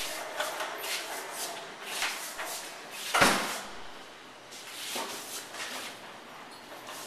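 Short knocks, clunks and rustles of things being moved and handled, with one heavier knock about three seconds in.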